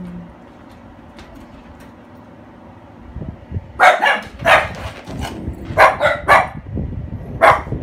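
A dog barking in a quick series of about eight sharp barks, starting about four seconds in.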